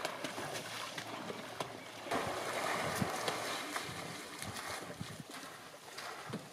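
African elephant's trunk tearing a clump of grass from the river and swishing it through the water: a rush of splashing about two seconds in, then scattered drips and small splashes.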